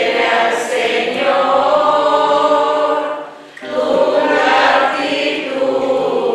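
Church congregation singing a short responsorial psalm refrain together: two sustained sung phrases with a brief breath a little past three seconds in.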